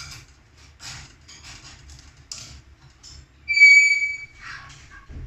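A pet bird calling: short scratchy chirps, then a loud clear whistle lasting about half a second, about three and a half seconds in, followed by a harsher rasping call.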